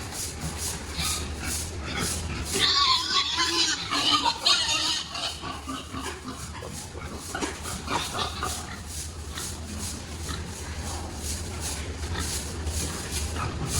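Pigs grunting and squealing in a pig barn: many short, irregular calls, busiest a few seconds in, over a steady low hum.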